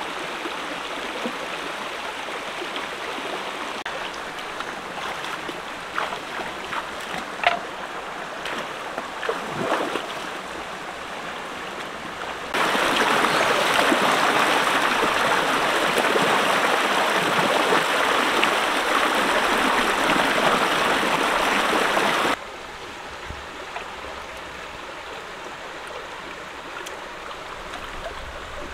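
Shallow stream water flowing, with a few small splashes in the first part. About twelve seconds in, a much louder rush of water cascading over rocks takes over for about ten seconds. It cuts off suddenly, back to a softer running stream.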